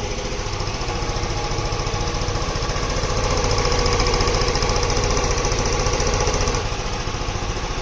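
Yamaha motorcycle engine running with its carburettor freshly rebuilt to cure a misfire, firing in a steady fast pulse. It gets louder through the middle and drops back near the end.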